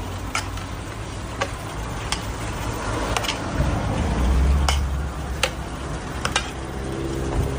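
A series of sharp clicks and knocks, about seven of them at irregular intervals, over a steady low rumble.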